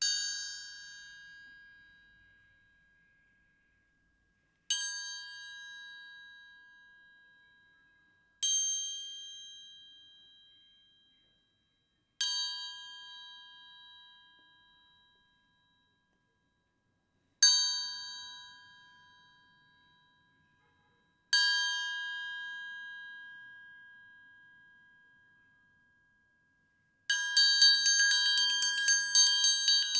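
Cheap toy metal triangle from a children's instrument set, struck six single times a few seconds apart, each stroke ringing out and fading over a few seconds. Near the end it is rattled in a fast continuous roll.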